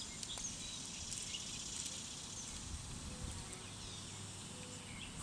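Small birds chirping in short, scattered calls over a steady high hiss and a low rumble of wind.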